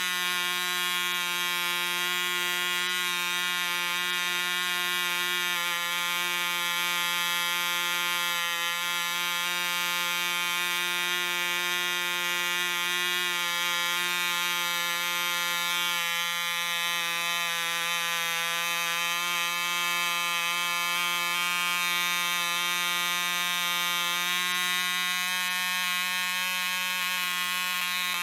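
1960s 1cc ME Heron model diesel engine running steadily at high speed: a high-pitched, even buzz with many overtones. Its compression screw is being adjusted by hand while it runs.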